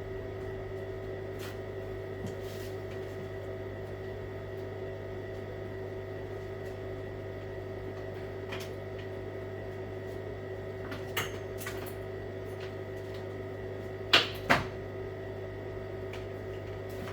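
Steady electrical hum made of several fixed tones, with scattered faint clicks of handling and two sharp knocks close together about 14 seconds in.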